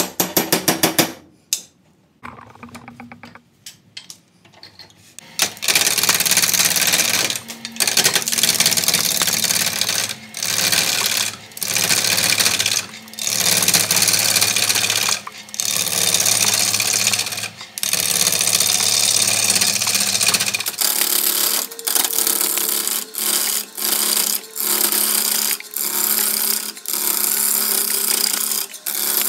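A quick clatter of rapid clicks near the start, then a wood lathe spinning a blank of wet cypress while a gouge cuts it. The cutting comes in loud passes broken by short pauses, over the steady hum of the lathe.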